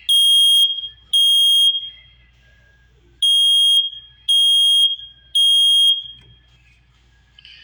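First Alert SA304 smoke alarm sounding its test alarm: a loud, high-pitched beep in the temporal-three pattern, two beeps, a pause of about a second and a half, then three more.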